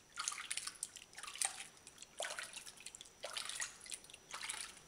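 Bathwater splashing and dripping in a stainless steel sink as a hand scoops water over a wet cat's back, about once a second.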